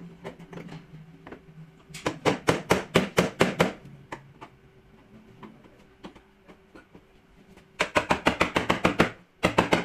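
Hammer striking metal in quick runs of taps, about six or seven a second: a run of about a dozen blows about two seconds in, another near the end, and a few more just after it.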